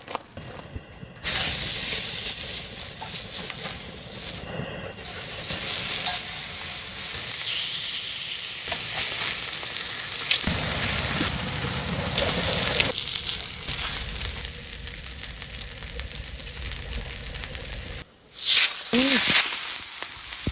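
Food sizzling as it fries in a hot pan, a steady hiss with a few abrupt changes. It breaks off near the end, followed by a brief louder sound.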